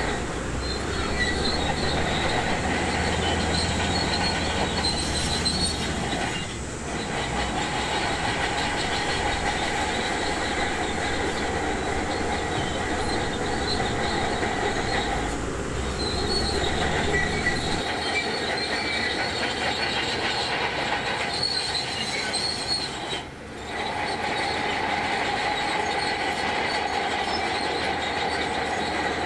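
Shantui DH17C2 crawler bulldozer working, its engine running under a steady high-pitched squeal from the steel tracks, which dips briefly three times.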